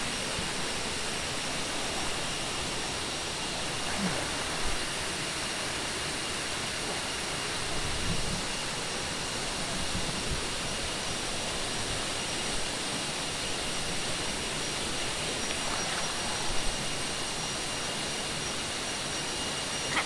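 Waterfall pouring into its plunge pool: a steady, even rush of falling water with no breaks.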